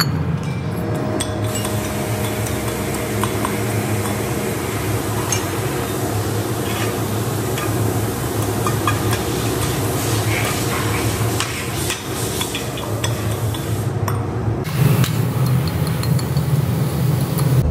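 Cast aluminium hub castings and loose aluminium scrap clinking and scraping as they are handled and knocked free of flash with a metal bar, with scattered light metallic clinks. A steady workshop machinery hum runs underneath.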